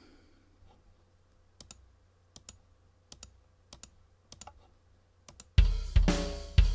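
A series of computer mouse clicks, mostly in quick pairs, then about five and a half seconds in an EZDrummer 2 sampled drum kit starts playing back, with a kick hit about once a second under snare and cymbals; the drums are the loudest sound.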